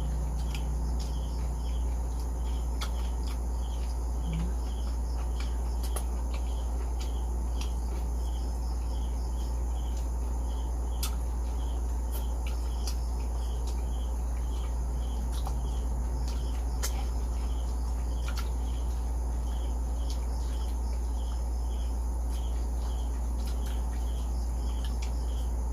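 Crickets chirping steadily, about two pulses a second, over a steady low hum. A few sharp crunching clicks come through, from eating crispy fried pork skin.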